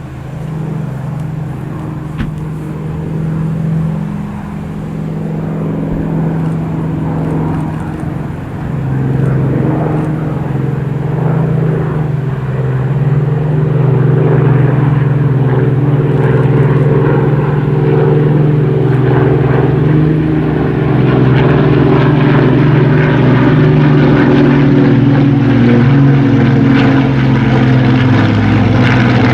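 Rolls-Royce Merlin V12 engine of a WWII British warbird running steadily, a propeller aircraft's deep drone. It grows louder over the first half and then holds at its loudest, pitch wavering only slightly.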